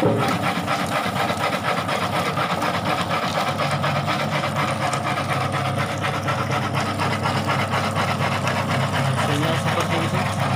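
Motor-driven tuber-peeling machine running steadily, with gadung tubers tumbling and scraping inside its drum as they are peeled, an even hum under a fast, regular rattle.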